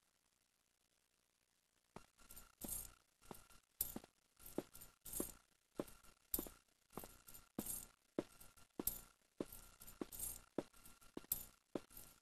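Footsteps, each with a metallic jangle like keys, starting about two seconds in at a steady walking pace of under two steps a second, over a faint steady hum.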